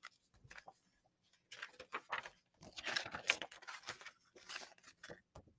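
Pages of a large hardcover picture book being turned and handled: faint, irregular paper rustling and crinkling that begins about a second and a half in.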